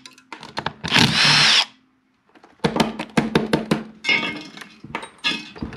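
Cordless drill-driver running in a short burst on the rear-housing screws of an alternator, its motor whining. After a brief pause comes a quick run of sharp clicks and rattles.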